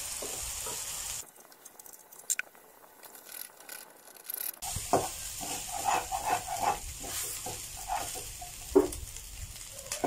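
Brown rice and chicken sizzling in a non-stick frying pan as a plastic spatula stirs and scrapes it. The sizzle cuts off abruptly about a second in and goes faint, and the spatula scraping and knocking against the pan comes back a few seconds later.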